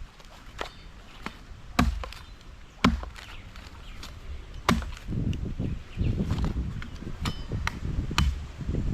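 Chopping: a series of sharp strikes, a second or two apart, as a blade hacks into coconut material. A low, rough noise joins about five seconds in.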